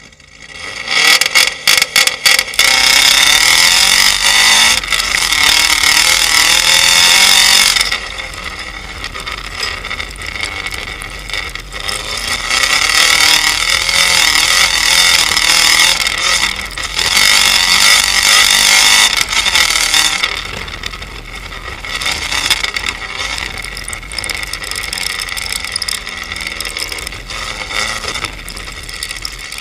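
Subaru WRX's turbocharged flat-four engine, heard close at the rear bumper, launching about a second in with a rapid string of sharp cracks from its anti-lag tune. It then runs at full throttle for several seconds, lifts off, comes back on hard for about eight seconds, and drops to a lower, uneven running.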